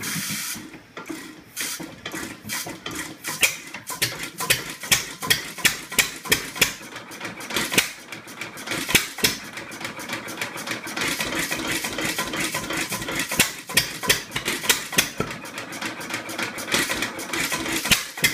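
Gould, Shapley & Muir hopper-cooled single-cylinder hit-and-miss engine catching after a hand crank and running on its own. It fires in sharp bangs at an uneven rhythm of roughly one to two a second, the governor's hit-and-miss cycle, and the firing comes closer together later on.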